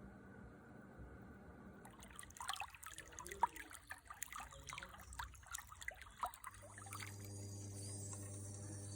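Water trickling in a quick, irregular run of small drips and splashes starting about two seconds in, giving way after about six seconds to a steady low hum with a faint hiss.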